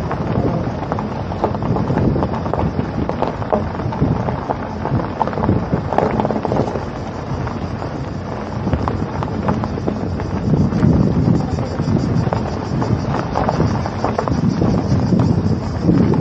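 Wind buffeting the microphone over the steady noise of a vehicle travelling along a road, with low rumbling swells that rise and fall.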